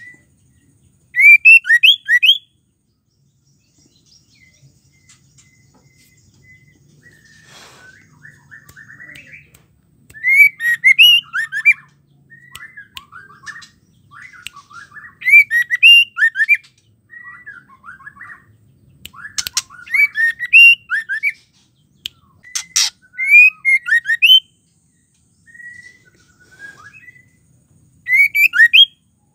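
White-rumped shama singing in about six loud bursts of rapid, rising whistled notes, each burst about a second long, with softer chattering phrases and short pauses between. Two sharp clicks fall about two-thirds of the way in.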